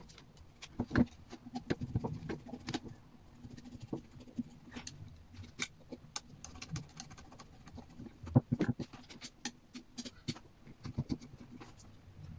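Irregular clicks, taps and small knocks of a kitchen extractor fan motor being handled and reassembled by hand, its rotor pushed into place and a long screwdriver worked against its shaft; the sharpest knocks come about a second in and past the middle.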